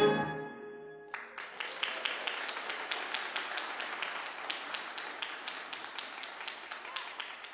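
The last chord of a string ensemble dies away, and about a second in an audience breaks into applause that keeps going steadily.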